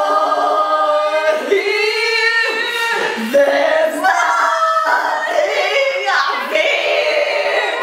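Two people singing loudly together without accompaniment, in long held notes that slide up and down in pitch.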